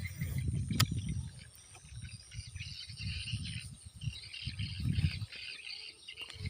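Outdoor rustling and low knocks, with high, pulsing chirps of wild creatures from about three to five seconds in and a sharp click near the start.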